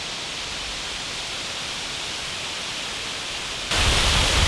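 Steady rush of a waterfall's falling water. About three and a half seconds in it jumps suddenly louder, with more low rumble.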